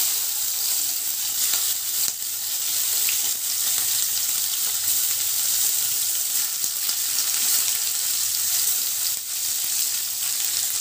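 Large shell-on prawns sizzling in hot oil in a frying pan as they are laid in one by one for a light fry; a steady hiss with scattered small pops.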